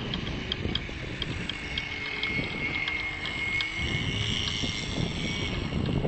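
Model powerboat's OPS 3.5 cc glow engine with a silenced pipe running at speed, a steady high whine with a lower engine note that rises about four seconds in. Wind noise on the microphone runs under it, with a faint irregular ticking.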